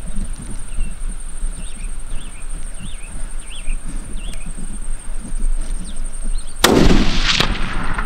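A single hunting-rifle shot about two-thirds of the way in, loud and sudden, with a short echo trailing off. Before it, a steady high-pitched whine and faint chirps sit in the background.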